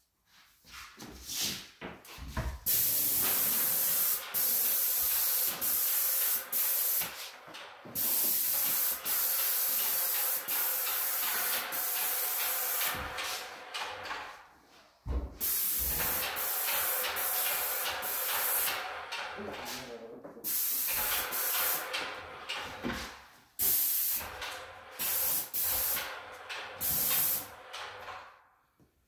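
Hose-fed paint spray gun hissing as paint is sprayed in passes, the hiss cutting in and out sharply as the trigger is pulled and released, with a longer break about halfway.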